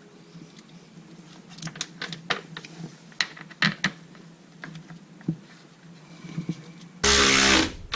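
Scattered light clicks and knocks of plastic as the Can-Am Maverick X3's CVT clutch cover is pushed and fitted into place by hand. About seven seconds in, a power drill runs in one short burst of under a second, driving in a cover bolt.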